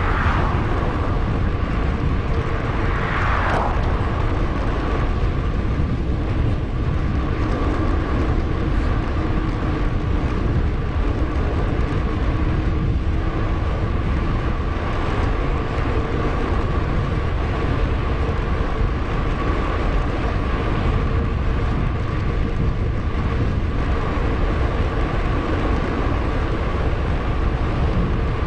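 Wind rushing over an action camera's microphone while riding a mountain bike, with a steady low rumble and a faint steady whine. The recording is played back sped up.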